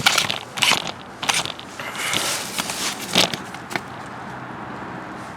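Hand tools and parts being handled during a car door repair: a string of sharp clicks, taps and scrapes for about four seconds, then the clicking stops.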